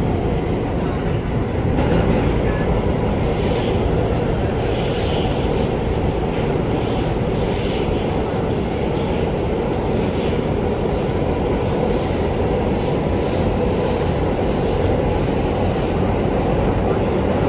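R211A subway car running at speed, heard from inside the car: a steady rumble of wheels on rail, with a faint high wheel squeal that comes and goes from about three seconds in.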